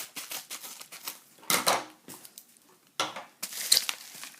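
Mail package of trading cards being opened by hand: crinkling and clattering of the packaging, with short clicks throughout and two louder bursts about a second and a half and three seconds in.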